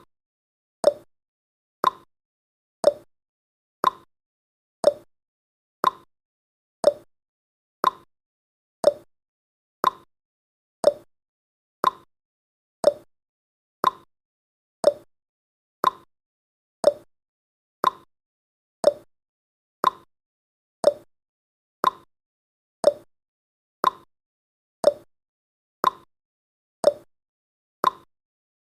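Countdown timer's clock-style tick-tock sound effect: one short tick every second, alternating between a higher and a lower pitch.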